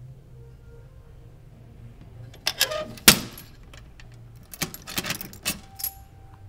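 A bunch of keys jangling around a metal mailbox door, with a sharp metallic clack about three seconds in as the door is shut. Then more jangling and clicking as a key is worked in the door's small lock.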